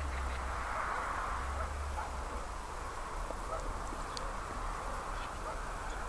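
Steady background noise with a low hum underneath and a few faint ticks.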